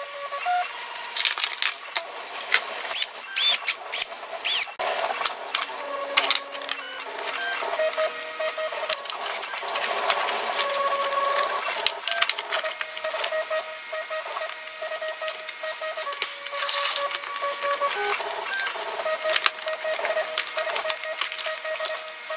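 Irregular small clicks, taps and rattles of hand assembly: M3 screws and nuts being fitted into a printed plastic corner bracket and handled against aluminium extrusion rails, over a faint steady hum.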